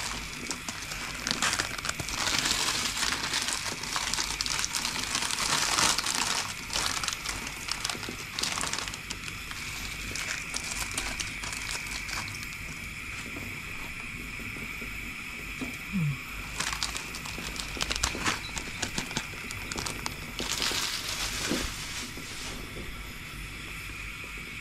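Plastic Maggi instant-noodle packets crinkling and dry noodle cakes being broken and crumbled into a saucepan, in several bursts of crackly rustling over a steady hiss.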